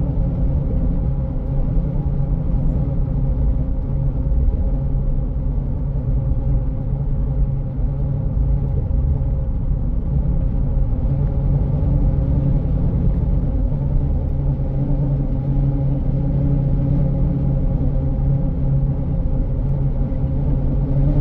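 Steady drone of a car driving at road speed, tyre and engine noise heard from inside the cabin, with a constant low hum and no sudden sounds.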